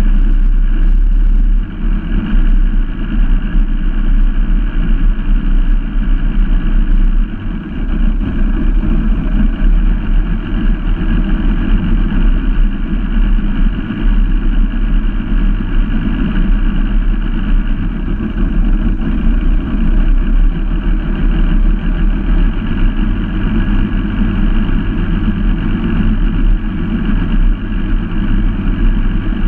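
Outboard boat engines running steadily at cruising speed on open water, with two brief dips in level, about two and seven seconds in.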